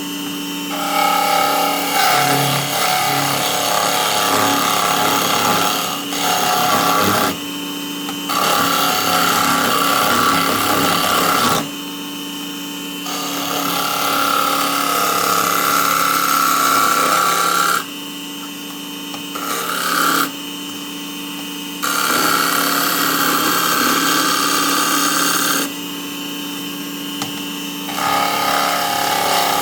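Small wood lathe's motor running steadily while a turning tool cuts the spinning wood in repeated passes of a few seconds each, with short pauses between where only the motor hum remains.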